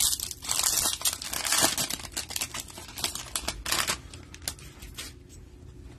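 Plastic wrapper of a pack of football trading cards being torn open and crinkled, in noisy bursts over the first two seconds and again just before the four-second mark. Light clicks follow as the cards are handled.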